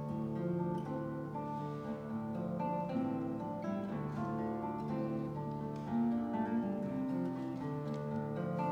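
Two classical guitars playing a duet, with many plucked notes ringing on over one another.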